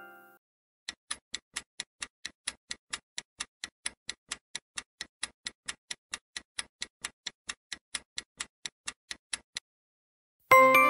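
Quiz countdown-timer sound effect: a clock ticking evenly at about four ticks a second for some eight and a half seconds. A bright chime, the answer-reveal sound, dies away at the start, and another begins near the end, louder than the ticking.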